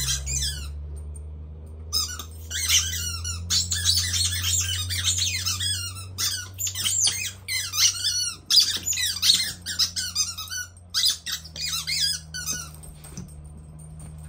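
Rubber squeaky dog toy squeaking rapidly as a miniature pinscher chews it, in long runs of quick high squeaks with short pauses, stopping shortly before the end. A low steady hum lies underneath.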